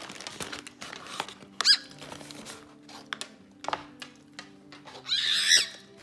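Cockatiel calling over background music: a short sharp call near the start of the second second, then a loud, harsh screech about five seconds in, an angry protest at food it is not given.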